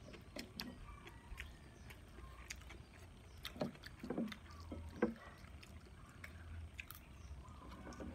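Eating at a table: a fork and spoon clicking now and then against a plate, the sharpest click about five seconds in, over a low steady hum.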